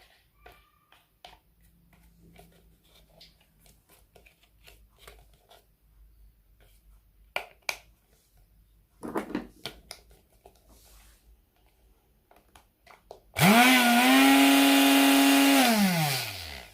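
Light clicks and knocks of handling, then about thirteen seconds in the Moulinex blender's electric motor switches on, runs at a steady high whine for a couple of seconds, and winds down with a falling pitch when switched off. It is a test run of the motor's drive coupling after its side pieces were removed, and the vibration is still there.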